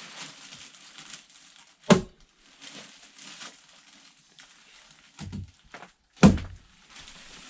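Knocks: two sharp, loud ones about two seconds and six seconds in, with a softer knock shortly before the second.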